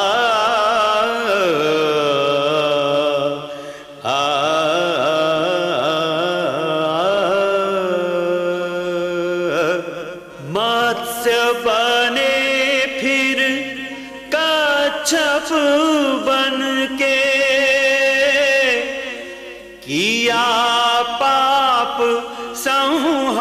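Indian classical-style music: long, ornamented melodic notes held in phrases a few seconds long, several of them sliding up into their first note.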